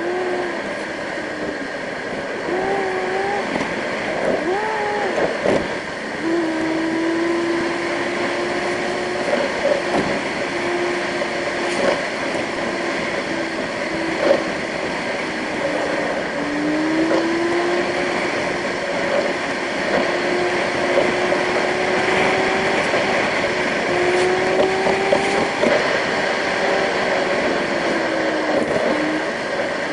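Car engine and tyre noise heard inside the cabin while driving. The engine's steady hum drifts up and down in pitch as the car speeds up and eases off.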